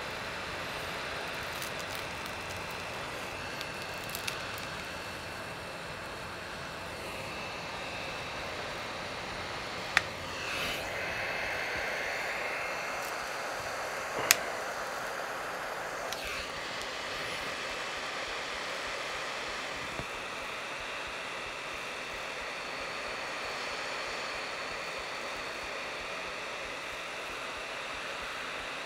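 Hot air rework tool blowing steadily, heating the adhesive under a touch screen to soften it for prying. Two sharp clicks stand out, about ten and fourteen seconds in.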